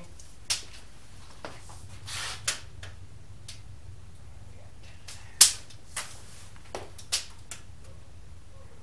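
A tape measure and level handled against the wooden wall spars: a few scattered sharp clicks and knocks, the loudest a little past halfway, over a steady low hum.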